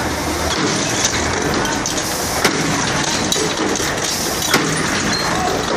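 Heavy machinery's diesel engine running steadily under a general work-site din, with a few sharp metallic knocks, three of them standing out.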